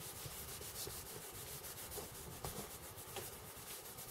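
Dye applicator rubbed back and forth along a thick leather strap, a faint run of short scrubbing strokes as a coat of leather dye is worked in.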